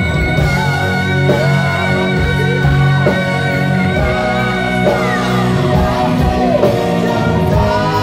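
Live rock band playing, with electric bass, electric guitar and drums under a male lead vocal. A long held high note falls away about five seconds in.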